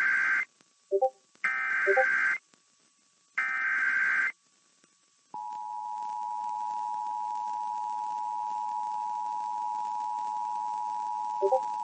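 Emergency Alert System signal: three short bursts of screeching digital header tones, then, about five seconds in, the steady two-tone attention signal. It marks the start of a new weather warning broadcast.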